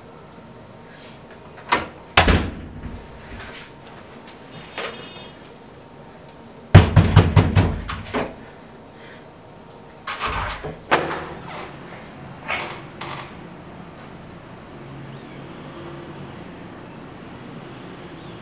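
Knocking on a wooden door: a couple of knocks about two seconds in, then a loud rapid run of raps about seven seconds in. About ten seconds in come a few more knocks and the clicks of the door handle and latch.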